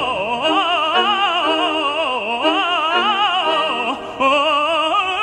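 Operatic tenor singing a florid run on a vowel, the pitch winding up and down with a wide vibrato, over an orchestra holding sustained notes. The voice breaks off briefly about four seconds in, then resumes.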